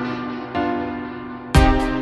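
Background music: soft sustained notes, with a loud drum beat coming in near the end.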